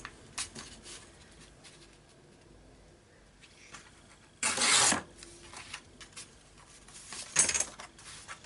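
Sheet of printed paper torn against a metal ruler: one short rip about halfway through and a second brief burst of paper noise near the end, with light paper rustling between.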